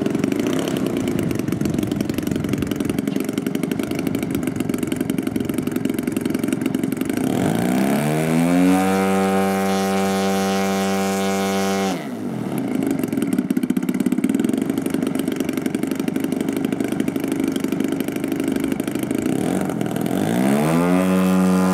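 Engine of a 37% scale Ultimate RC biplane running at low throttle, then run up with a rising pitch about eight seconds in and held at high power for about four seconds before cutting back abruptly. Near the end it throttles up again, rising in pitch, as the takeoff run begins.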